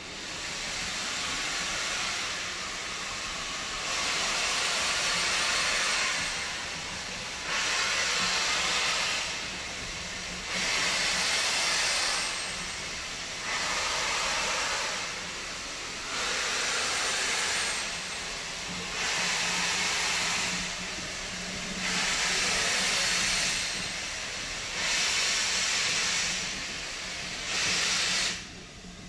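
Steam locomotive letting off steam in long, loud hisses that repeat about every three seconds, with a low steady hum underneath.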